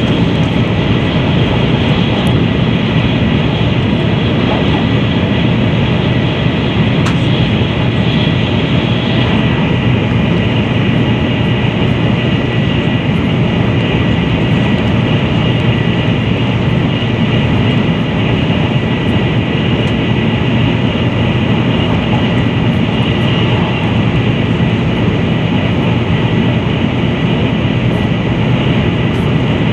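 Steady cabin running noise of a Taiwan High Speed Rail 700T train at speed: a dense low rumble of wheels and air, with a thin steady high tone over it.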